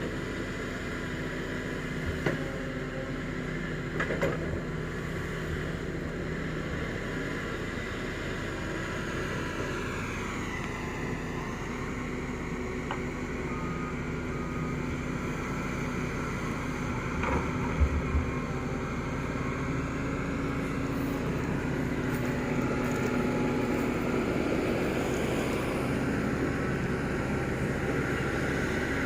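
Doosan DX225LCA excavator's diesel engine running steadily while it digs, with a pitch dip and recovery about ten seconds in as the engine takes load. A few short knocks come around two and four seconds in, and again near eighteen seconds.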